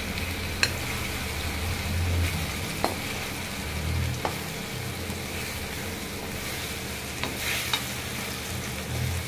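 Colocasia leaf pieces being stirred with a spatula into hot oil and onion masala in a kadhai, frying with a steady sizzle. A few short taps of the spatula against the pan sound through it.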